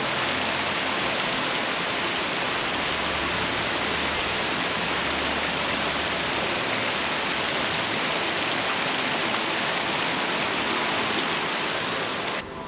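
Water pouring steadily over a small man-made dam outflow, a continuous rushing hiss that drops away abruptly near the end.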